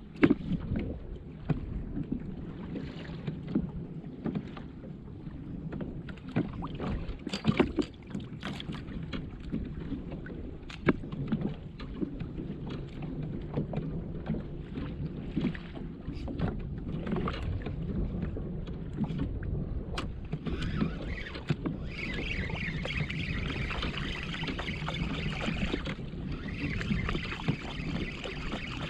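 Water lapping against a fishing kayak's hull, with irregular knocks and clicks of gear on the boat. A steady hiss comes in about twenty seconds in and drops out for a moment a few seconds later.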